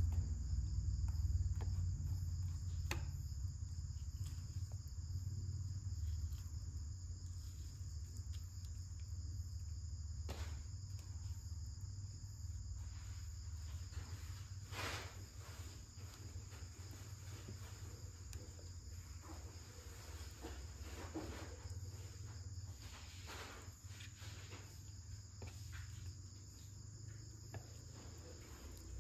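Steady high insect chorus, with a low rumble that fades over the first half and a few scattered light knocks.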